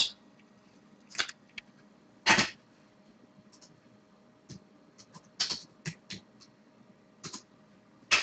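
Hockey trading cards and a foil pack being handled: a handful of brief, soft rustles and slides with gaps between them.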